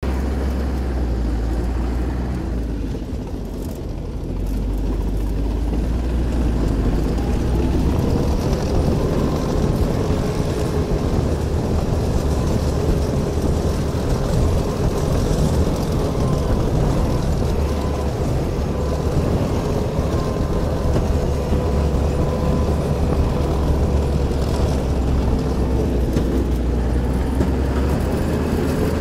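NSU Kettenkrad half-track motorcycle driving off-road, its Opel four-cylinder petrol engine and drivetrain running under load. It eases off briefly a few seconds in, then picks up again about six seconds in, when a steady whine joins the engine note and holds.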